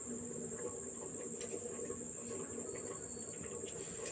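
Steady high-pitched insect drone, like crickets calling, with faint scattered clicks and taps behind it.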